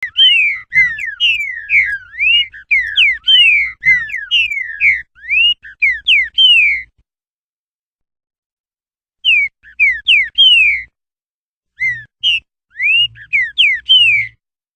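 Green-winged saltator (trinca-ferro) singing the 'roquinho' song: rapid, loud, clear whistled notes sliding up and down. One long phrase of about seven seconds, then after a pause two shorter phrases.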